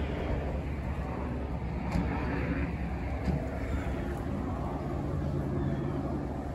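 Steady outdoor traffic noise from a motor vehicle running, with a low steady hum joining in about halfway through.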